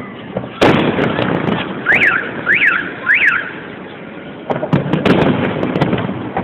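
Aerial fireworks shells bursting: a loud bang about half a second in, trailing off into crackle, then two more bangs with crackle near the end. Between the bursts come three short rising-and-falling chirps, evenly spaced.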